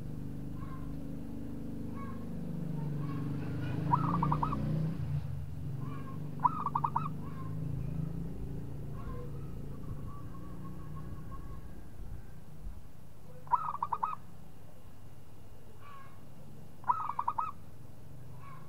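Zebra dove (perkutut) cooing: four short bursts of rapid staccato coos, a few seconds apart. Faint short bird notes come about once a second, and a low hum runs under the first half.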